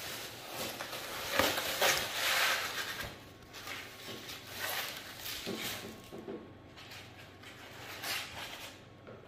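Unpacking noise: loose plastic wrap crinkling and polystyrene foam packing rubbing and scraping as it is pulled off a metal wall clock. It comes in irregular bursts, loudest in the first few seconds, then quieter.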